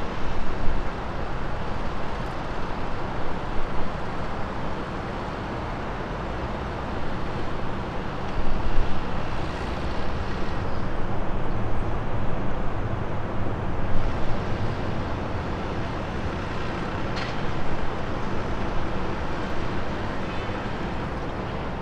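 Freight train of covered hopper cars rolling past: a steady rumble and clatter of steel wheels on the rails, with a few brief higher-pitched sounds about halfway through and near the end.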